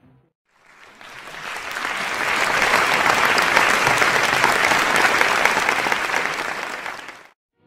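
Crowd applauding, swelling in over about two seconds and fading out shortly before the end.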